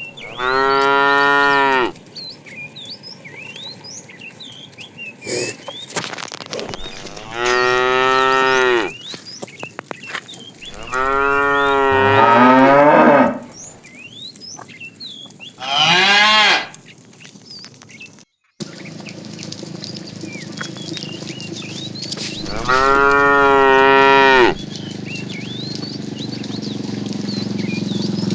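Cows mooing: five long, loud moos a few seconds apart, the third and fourth sliding down in pitch at the end.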